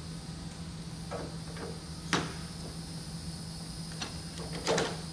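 Hand PEX crimp tool being set on crimp rings and squeezed: a few scattered metal clicks and clunks, the sharpest about two seconds in and a small cluster near the end.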